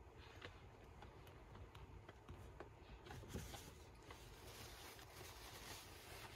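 Near silence with faint rustles and small ticks of handling, as a paper tissue is pulled from its box and brought to the mouth.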